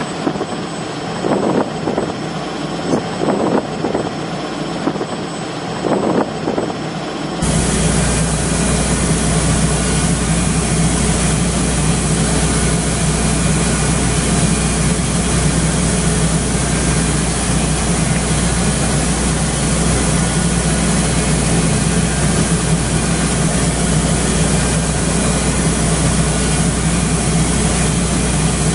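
A few short knocks of metal tooling being handled. About seven seconds in, a steady machine drone with a low hum sets in abruptly: a portable CNC milling machine running its boring bar in a bore.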